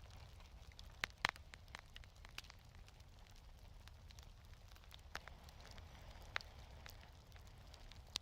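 Wood fire in a fireplace crackling: scattered sharp pops, a loud pair about a second in and a few more later, over a faint, low, steady rumble.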